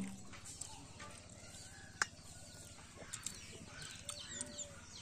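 Small birds chirping and a chicken clucking now and then, with one sharp click about two seconds in.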